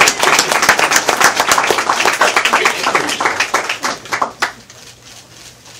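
A small audience applauding, many hands clapping, dying away about four and a half seconds in.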